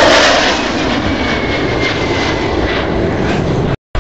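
Fighter jet's engine roaring as it passes, loudest at the start and easing off a little. The sound cuts out briefly near the end.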